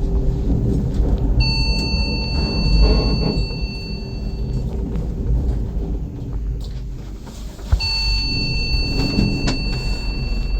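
Two long electronic beeps, each held about three seconds, a few seconds apart, over a low steady rumble; a click comes just as the second beep starts.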